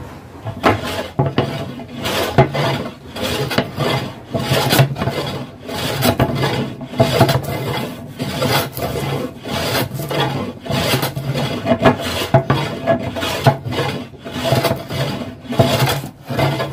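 Stanley No. 5 jack plane shaving a wooden board: the steel blade rasps along the grain in quick repeated strokes, about two a second.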